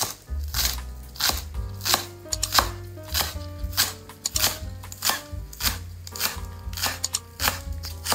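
Kitchen knife chopping vegetables on a wooden cutting board, sharp strokes about every half second, over background music with a bass line.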